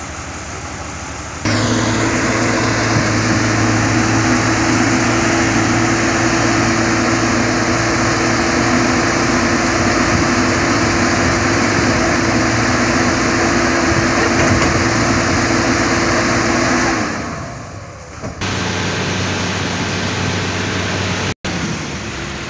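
Heavy diesel engine of earthmoving machinery, a motor grader, running close by at high, steady revs. Near the end it falls away, and a lower-pitched diesel engine runs on steadily.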